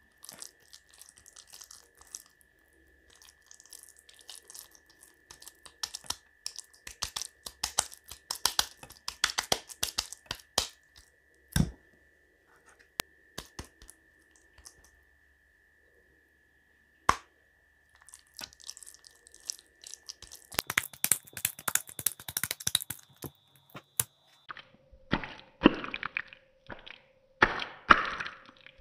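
Kitchen preparation handling noises: scattered clicks, crackles and knocks of utensils and food, busiest in the middle and near the end. A faint steady high whine runs underneath and shifts pitch about two-thirds of the way in.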